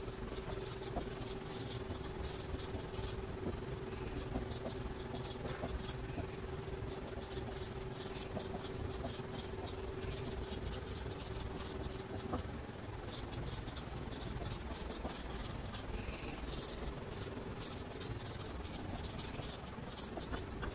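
Sharpie marker writing on paper: quick squeaky, scratchy strokes come in clusters as each word is written, with short pauses between. A steady hum sounds underneath and stops about twelve seconds in.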